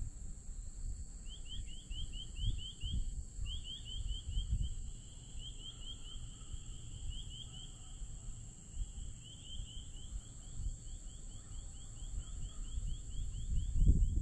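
Outdoor ambience: an uneven low rumble, a steady thin high whine, and runs of short rising chirps from a small animal, about five a second, stopping and starting a few times.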